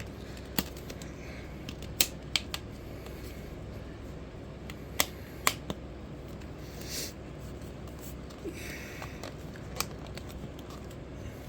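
Scattered sharp clicks and taps, with a couple of brief rustling scrapes, as windshield trim is handled and pushed into the rubber windshield seal, over a steady low hum.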